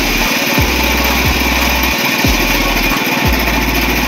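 Small petrol engine driving a food grinding mill, running steadily while the mill is flushed with water.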